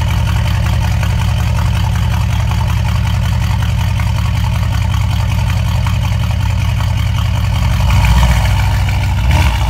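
Mercedes E63 AMG's 5.5-litre biturbo V8, straight-piped with aftermarket headers, idling loud with a fast, lumpy low burble. The engine note rises briefly about eight seconds in and again near the end.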